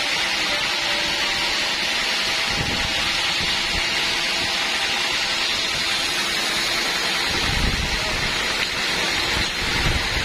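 Sawmill band saw running through a teak log: a steady hiss with a faint hum under it, and low rumbles about two and a half and seven and a half seconds in.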